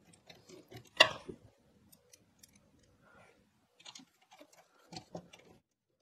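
Screwdriver driving a screw through the PC case side into an SFX power supply: scattered faint clicks and ticks, with one sharp click about a second in.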